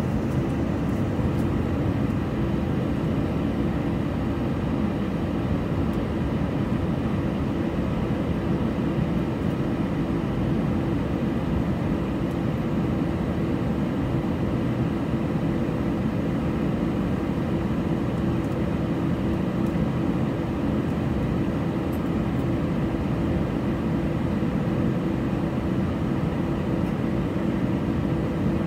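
Steady cabin noise inside a jet airliner on the ground before takeoff, engines at idle: an even low rumble with faint steady whines above it.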